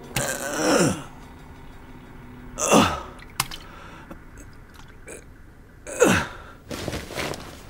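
A man making three short wordless vocal sounds, about three seconds apart, each sliding down in pitch.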